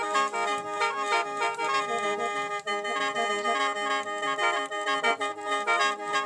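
Khaen, the Lao/Isan bamboo free-reed mouth organ, played in sut yai mode (thang san, with the left-thumb drone pipe held). A quick, rhythmic melody runs over steady drone notes.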